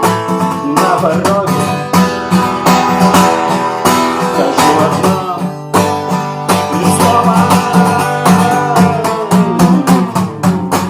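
Acoustic guitar strummed in a steady, fast rhythm as an instrumental passage with no singing.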